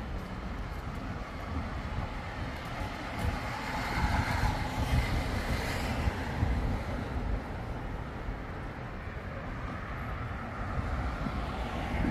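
City street traffic: a steady rumble of passing vehicles that swells about four seconds in as something louder goes by.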